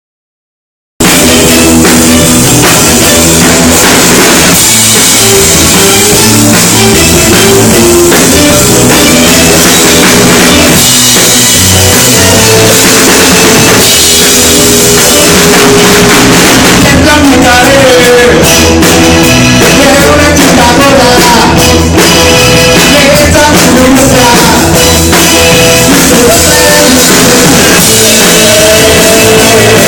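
Rock music with a drum kit and guitar, loud and continuous, starting about a second in; a voice sings over it at times.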